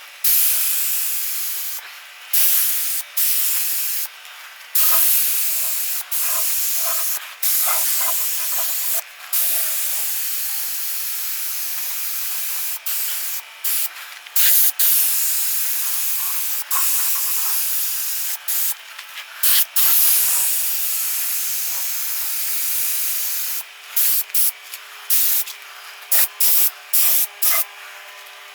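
Compressed-air paint spray gun spraying acrylic enamel at about 40 psi: a loud hiss in long passes that stop and restart as the trigger is released and pulled, turning into short quick bursts near the end.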